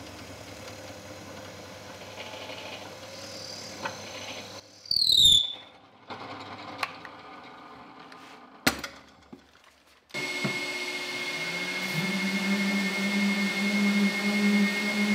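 Bench drill press running as the bit cuts into spalted beech, with a brief high squeal falling in pitch about five seconds in, then a couple of sharp clicks as the sound dies away. About ten seconds in, an electric random orbital sander starts up and runs steadily, with a steady whistling tone, louder than the drilling.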